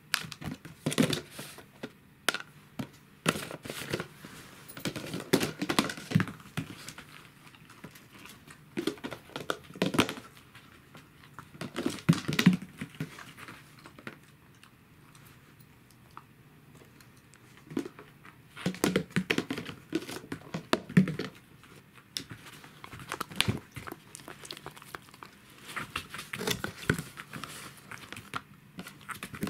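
Hard plastic boxes clattering, knocking and scraping on the floor in irregular bursts as dogs nose into them after treats and a hand moves them about, with a quieter stretch about halfway through.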